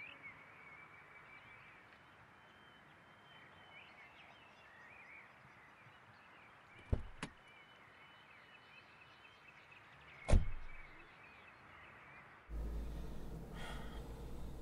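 Car doors being opened and shut against faint birdsong: two sharp clicks close together about seven seconds in as the doors are opened, then a loud thump of a door shutting about three seconds later. Near the end a steady low rumble of a car interior with the engine running takes over.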